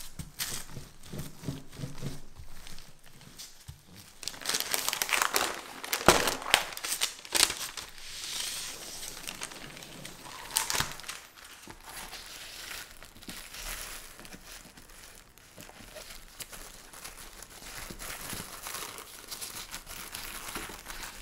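Plastic film and baking paper crinkling and rustling as they are handled and peeled away from a rolled sheet of tart dough. The rustling is loudest about four to eight seconds in, with a few sharp crackles. At the start a wooden rolling pin rolls over the covered dough.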